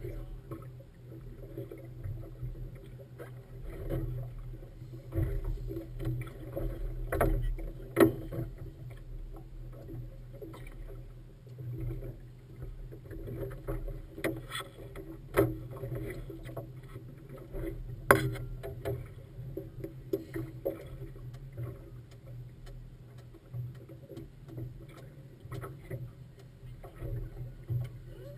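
Motorboat engine running steadily, with water washing along the hull. A few sharp knocks come through it, the loudest about eight and eighteen seconds in.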